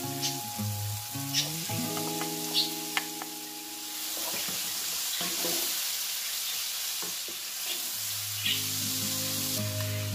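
Diced onions, green onions and bell peppers sizzling in oil in a frying pan and being stirred with a wooden spoon. The sizzle grows louder a few seconds in, with occasional sharp clicks.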